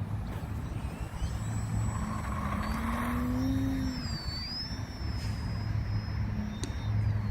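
E-flite Valiant RC plane's electric motor and propeller whining, the pitch gliding up and shifting as the power changes, over a steady low rumble.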